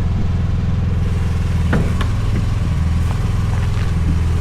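Mini excavator's engine running steadily, with a couple of light metallic clicks about two seconds in.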